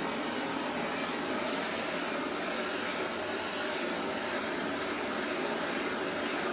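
Handheld gas torch burning with a steady hiss, its flame passed over fresh epoxy to pop surface bubbles.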